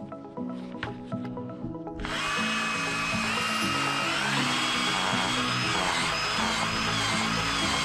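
Power drill turning an auger bit as it bores into heavy clay soil: the motor starts about two seconds in and runs with a whine that rises in pitch partway through.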